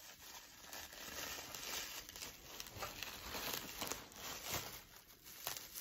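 Plastic bubble wrap crinkling and rustling faintly in the hands as a small wrapped piece is unwrapped, with irregular small crackles.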